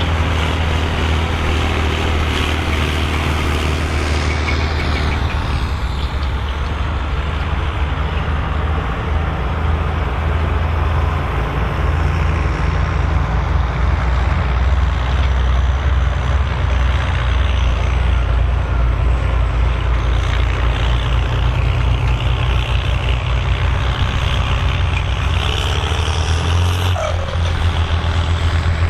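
Volvo BM farm tractor's diesel engine running steadily under load while ploughing, a deep continuous engine drone.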